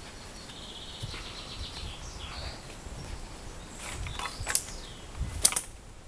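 A small bird chirps and trills in the first half. Then the walker's footsteps go through woodland undergrowth, with a few sharp cracks and thumps, the loudest a little before the end.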